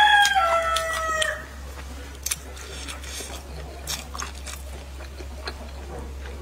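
A rooster crowing, the end of its crow falling in pitch and dying away about a second and a half in. Scattered faint clicks follow over a steady low hum.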